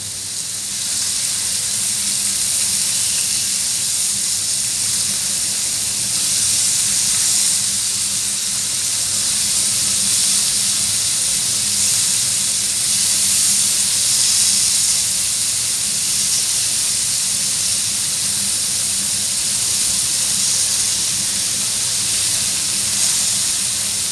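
Marinated queenfish fillets sizzling steadily on a hot ridged grill pan, the hiss building over the first second or so as the pieces go on, with a faint low hum underneath.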